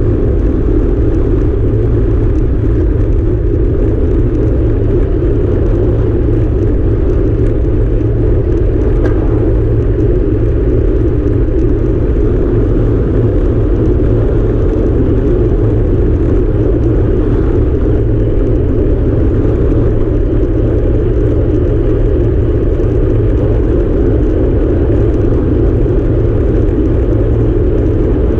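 Steady, loud rumble of wind buffeting a handlebar-mounted camera's microphone as a bicycle rides at speed, with road noise beneath.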